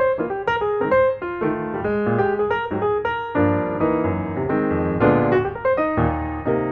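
Background piano music: a run of single piano notes and chords at a moderate, flowing pace.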